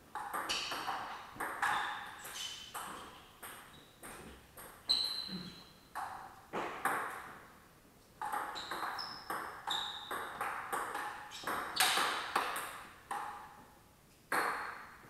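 Table tennis ball clicking off paddles and table in rallies, about two hits a second, each hit with a brief high ping. The hits stop a little before the end, and one more sharp tap comes near the end.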